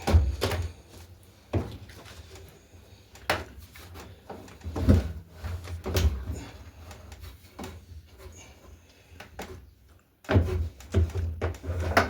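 Scattered clunks and knocks as a top-loader washing machine's suspension rods and loose drum are handled, with a quicker run of knocks near the end.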